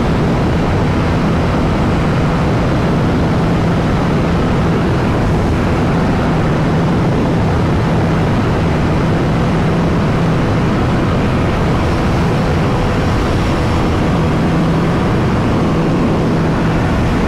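KTM RC 390's single-cylinder engine held at steady high revs at about 165 km/h, under a constant heavy rush of wind on the microphone.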